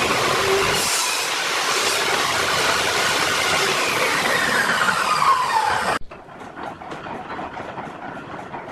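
Table saw ripping a pine board: a loud whining cut. The blade's pitch then falls as it winds down, and the sound stops abruptly about six seconds in. After that comes softer scratchy brushing of sawdust on a concrete floor.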